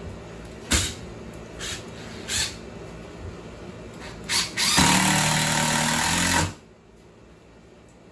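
Cordless drill driving a screw into a wooden block. It gives several short trigger blips to start the screw, then runs steadily for about two seconds as the screw goes home, and stops suddenly.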